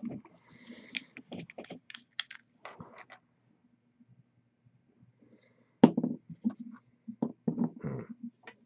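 Plastic dropper bottles of paint being handled and set down on a tabletop: scattered small clicks and knocks, with a sharp louder knock about six seconds in and a cluster of taps after it.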